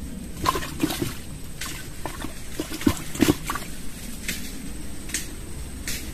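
Short clicks, knocks and small watery splashes and drips, about eight over six seconds, as hands work at a plastic fishing box by the water, over a steady low outdoor rumble.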